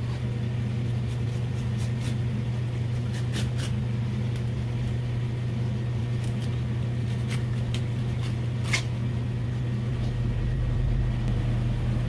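Steady low machine hum, with a few faint ticks and scrapes from a knife skinning a stone flounder fillet on a plastic cutting board.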